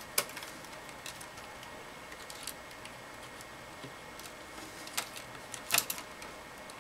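Sparse light clicks and taps as fingers work a flat ribbon cable into its connector on a tablet's metal-shielded motherboard tray, the loudest a quick pair of clicks about five to six seconds in.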